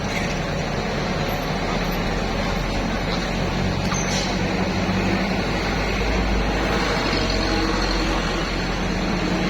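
Heavily loaded truck's diesel engine running steadily as it comes down a steep mountain road, a continuous low drone that swells slightly about halfway through.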